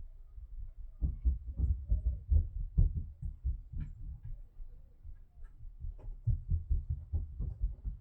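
Dull, low thudding from the floor above, like heavy footsteps pounding across the ceiling, about three or four thuds a second. They come in two spells with a lull around the middle.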